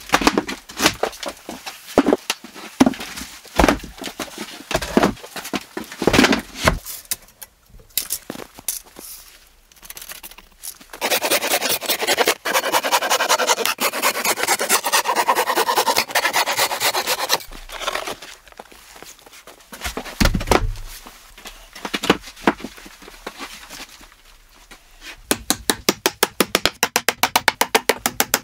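Wooden pallet clattering and knocking as it is handled, then a handsaw cutting through pallet boards in quick strokes for several seconds, then a fast even run of light hammer taps near the end.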